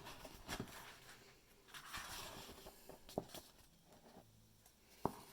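Faint rustling and a few soft clicks from a picture book's paper pages being handled and turned.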